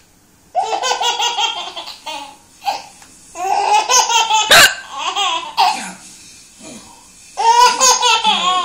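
Baby belly-laughing hysterically at his mother's hiccups, in three bouts of rapid high-pitched giggles with short pauses between them. A single short, sharp sound cuts in during the middle bout.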